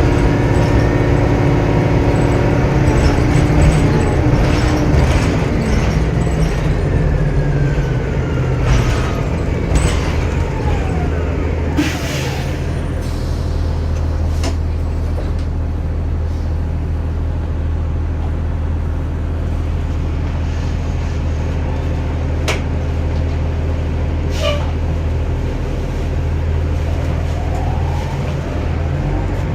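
Inside a 2009 Orion VII Next Generation hybrid bus with a Cummins ISB diesel and BAE Systems HybriDrive: the drive's whine falls in pitch as the bus slows, over the steady diesel. About twelve seconds in there is a burst of air hiss. After that the bus runs steadily with a few sharp clicks.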